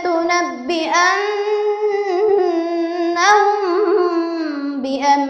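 A young girl's voice reciting the Quran in melodic tajwid, holding a long drawn-out note with ornamented turns in pitch, then going on into the next word near the end.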